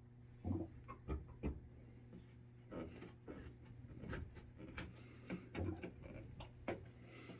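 Gas furnace during a start attempt, with a steady low hum and scattered, irregular light clicks and knocks.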